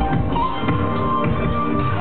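Music from a DJ set over a club sound system, with plucked guitar-like notes and a steady beat; a held note slides up about half a second in.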